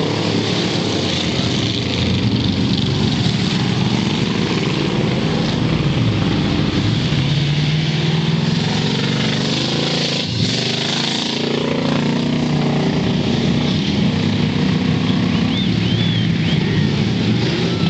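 Engines of several rear-wheel-drive bomber-class stock cars racing on a dirt oval, loud and continuous, their pitch rising and falling as the drivers go on and off the throttle through the turns.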